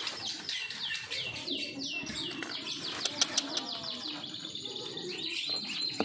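Small birds chirping in a quick series of short, downward-sliding chirps, with a few sharp clicks about three seconds in.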